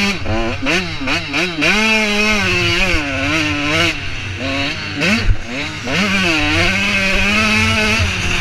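85cc two-stroke motocross bike engine under hard riding, revving up and down as the throttle is worked: several quick rises in pitch in the first couple of seconds, then held high, dropping twice in the middle and climbing back up near the end.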